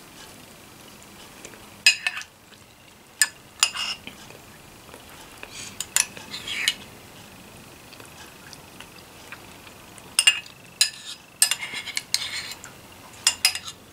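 Spoon clinking and scraping against a ceramic soup bowl in scattered sharp strokes, with a cluster of quick clinks near the end as the bowl is scraped clean.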